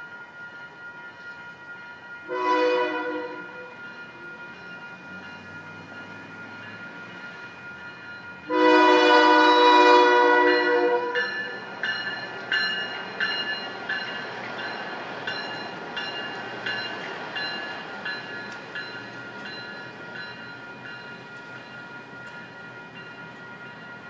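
Passenger train's horn sounding a short blast about two seconds in, then a longer, louder blast, over the steady ringing of a grade-crossing warning bell. The railcar then rolls through the crossing, its wheels clicking regularly over the rail joints.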